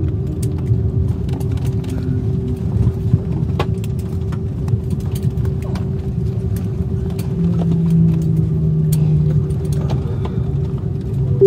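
Airliner cabin noise in an Airbus A330-300 near the gate: a steady low rumble with a constant hum, and scattered light clicks and knocks. A deeper hum swells for a couple of seconds past the middle.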